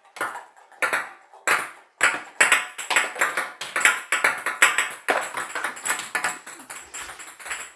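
Small plastic game balls from a Connect 4 ball-bouncing game bouncing on a hard tabletop and knocking against the plastic game board: a quick, irregular run of light ticks and taps.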